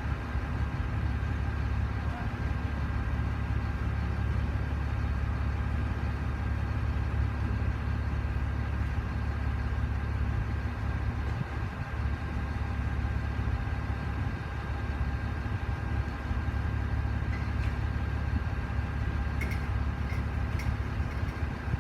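Heavy vehicle engine running steadily at a constant speed, with a few faint clicks near the end.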